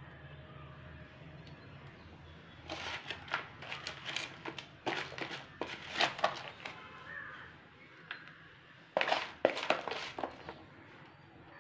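Crumbly potting soil crunching and crackling as it is handled and pressed into a pot, in two spells of quick, sharp crackles: a longer one from about a quarter of the way in and a shorter one near the end.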